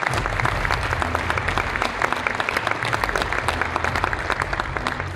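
Audience applauding: many hands clapping steadily and densely throughout, welcoming an award recipient to the stage.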